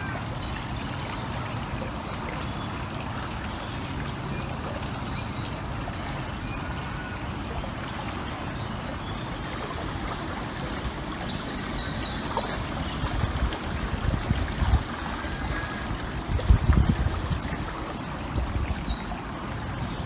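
Steady rush of flowing stream water, with a few faint bird chirps. Uneven low rumbles swell in the second half.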